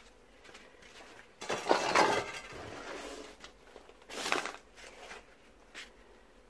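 Hands handling and squeezing pieces of wild honeycomb in stainless steel bowls, with two louder bursts of crushing and scraping against the metal, the first about a second and a half in and the second about four seconds in, and a short click near the end.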